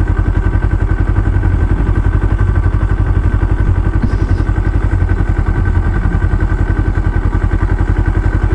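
Vehicle engine running steadily at an even speed with a fast, regular throb, over a constant wash of wind and road noise.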